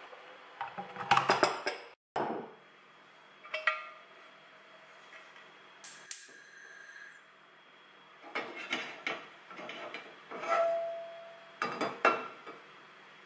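Kitchen handling sounds: a metal spoon scraping and clinking against a glass bowl, then a square nonstick pan knocking on the cast grates of a gas hob and the burner knob clicking as it is turned, a run of sharp clicks and clinks with short metallic rings.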